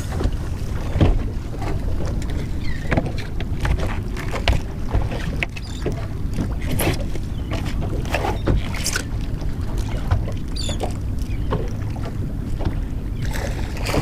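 Wind buffeting the microphone in a steady low rumble, with scattered short clicks and knocks.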